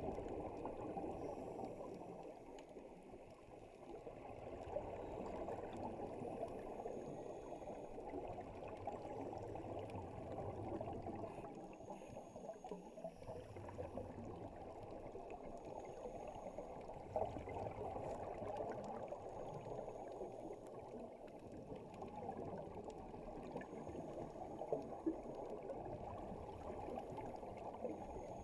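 Underwater ambience heard through a camera housing: a steady, dull rushing of water, with a few faint clicks.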